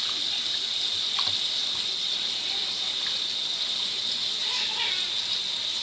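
Kitchen tap water running steadily from a pull-down spray hose into a bowl in a stainless-steel sink as a raccoon washes the bowl in the stream, with a few faint clicks.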